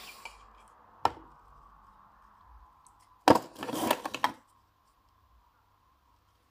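Hard objects being handled: a sharp click about a second in, then a cluster of knocks and clatter around three to four seconds in, over a faint steady hum.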